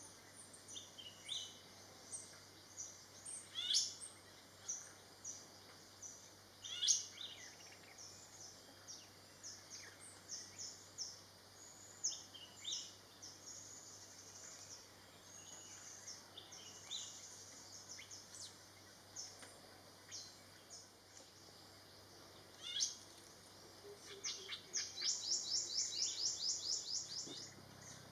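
Wild songbirds calling: many short, high chirps and call notes, a few sharper and louder than the rest, then a fast trill of evenly repeated high notes starting near the end.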